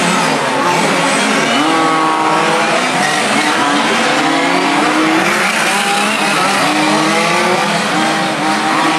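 Several radio-controlled touring cars racing together, their high-pitched motors overlapping and rising and falling in pitch as they accelerate and slow through the corners.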